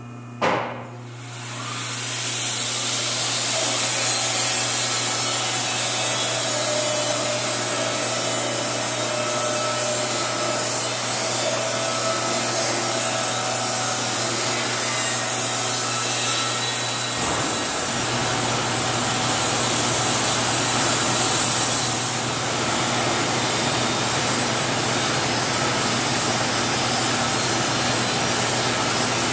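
Wood-Mizer LT50 band sawmill, driven by its electric motor, sawing lengthwise through a walnut log: a loud, steady running noise with a strong high hiss from the band blade in the wood. A sharp knock about half a second in, then the noise rises to full level over the next second or so.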